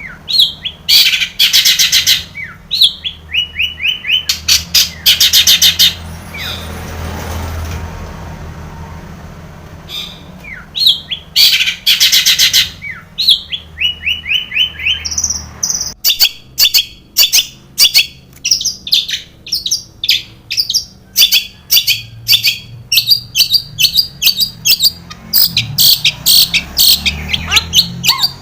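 Long-tailed shrike (cendet) singing hard: loud scratchy trills and runs of short falling notes, a song packed with mimicked phrases. After a lull in the middle it breaks into a fast series of sharp repeated calls, several a second.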